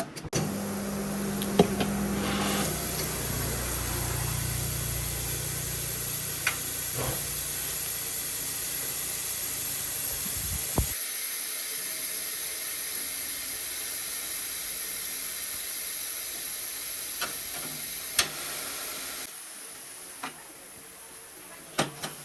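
Steady hiss of compressed air from a shop air tool. A lower rumble under it stops abruptly about eleven seconds in, a few sharp clicks break through, and the hiss cuts off near the end.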